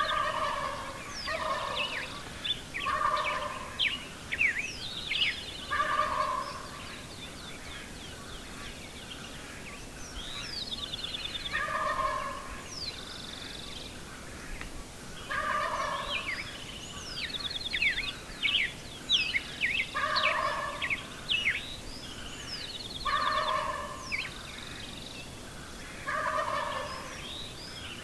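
Gould's wild turkeys gobbling, a burst every two to four seconds, with songbirds chirping and trilling high above them.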